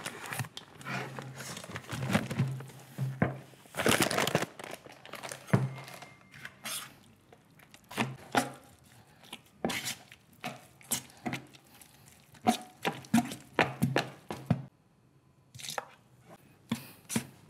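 Setting-type plaster compound being made up: a paper sack of powder rustling and crinkling as the powder is poured into a plastic bucket of water, then a metal spatula scraping and knocking around the bucket in short repeated strokes as it is mixed.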